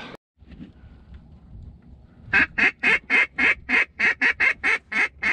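A duck call blown as a rapid series of about a dozen loud quacks, beginning a couple of seconds in.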